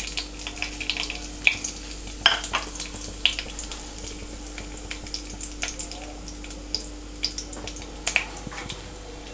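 Cashews, a cinnamon stick and a bay leaf sizzling in hot oil in a steel kadai, with scattered sharp crackles and pops throughout.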